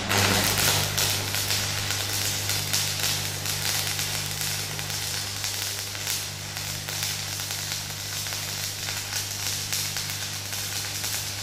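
Manual metal arc (stick) welding of a steel corner joint: the arc crackles and sizzles steadily, over a steady low hum.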